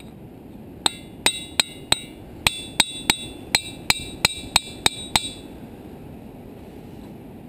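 Hammer striking a ringing rock, a diabase boulder, about a dozen quick blows at roughly three a second, each giving a bright, bell-like ring with a peculiar tone; the strikes stop about five seconds in.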